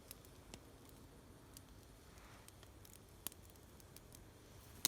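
Small campfire of wet wood crackling quietly: a faint hiss with scattered sharp pops, the loudest one just before the end.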